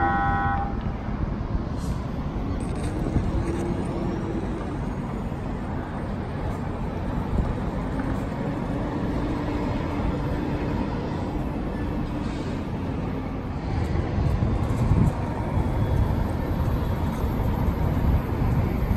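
A San Diego MTS light-rail car moving slowly out of the yard, its rumble mixed with steady road traffic noise. The low rumble grows louder about three-quarters of the way through.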